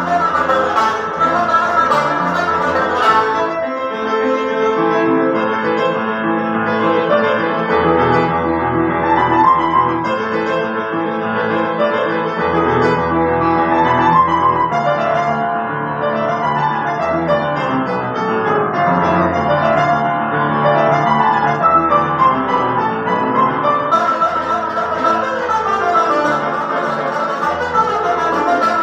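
Upright piano playing a solo interlude with a moving accompaniment. A long-necked lute with a skin-covered body is plucked over it for the first few seconds, drops out, and comes back in about five seconds before the end.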